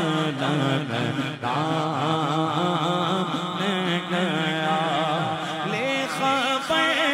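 A man singing an Urdu naat into a microphone, drawing out long, wavering melismatic notes without words, over a steady low vocal drone.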